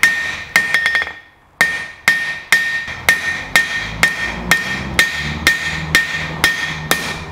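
Hand hammer striking a red-hot bar of 4140 steel on a Cliff Carroll anvil while drawing out a chisel taper: steady blows about two a second, each with a bright ring from the anvil. A quick flurry of light taps and a short pause come about a second in.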